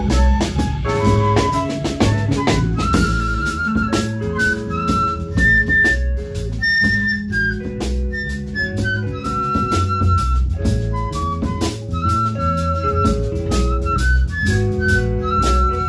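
Live instrumental jazz-style music: a drum kit keeps time under a walking low bass line while a lead melody, flute-like, plays sustained notes with vibrato.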